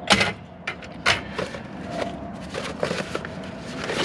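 Knocks, clicks and scrapes of electronic scrap, circuit boards and metal equipment chassis, being handled and shifted by gloved hands, with the sharpest knocks near the start and about a second in.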